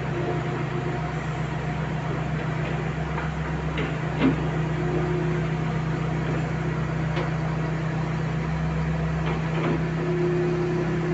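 Hitachi mini excavator's diesel engine running steadily, with a few sharp metal knocks, the loudest about four seconds in. A higher steady tone joins the engine twice, briefly near the middle and again near the end.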